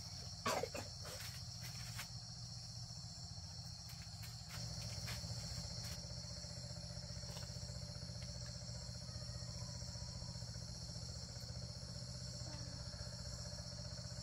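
Steady high-pitched chorus of insects in the background. A low steady hum runs underneath and grows a little louder about four and a half seconds in. A few light clicks and a brief louder sound come about half a second in.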